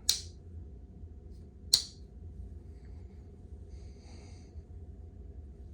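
Two sharp clicks about a second and a half apart from an old pocket knife being handled, over a faint low hum.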